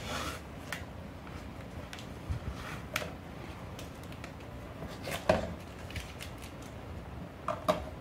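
Scattered knocks, taps and short scrapes of a sheet of watercolour paper and its wooden drawing board being handled on an easel, with the sharpest knocks about five seconds in and near the end.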